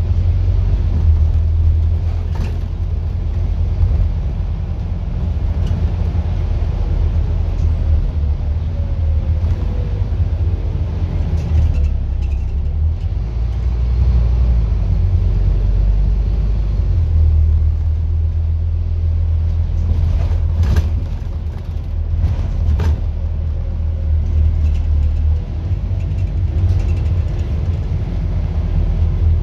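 Scania N230UD double-decker bus heard from the upper deck on the move: a steady low engine drone and road rumble, with a faint whine that falls in pitch twice as the bus slows. A few sharp rattles or knocks from the bodywork, two close together about two-thirds of the way through.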